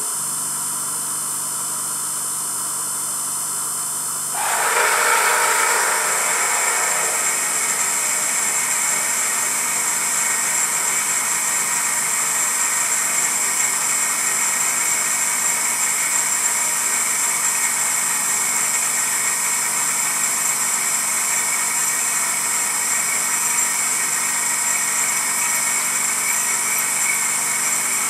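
Emco F1 CNC milling machine drilling a cast iron backplate: a steady machine hum, then about four seconds in a sudden louder, steady cutting noise as the drill bites into the cast iron, which carries on evenly.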